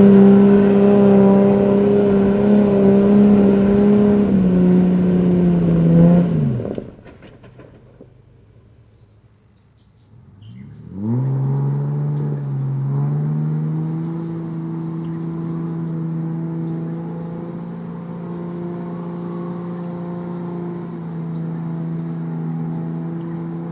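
Four-wheel-drive engine running under load, which drops in pitch and dies away about a quarter of the way in. After a few quiet seconds the Toyota Land Cruiser 80 series engine comes in with a short rise and runs steadily at low revs as the truck crawls over rutted clay, with faint high ticking above it.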